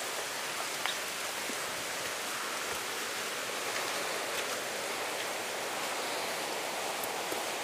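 Steady rain falling on leaves and foliage, an even hiss, with a few faint taps of footsteps on the steps.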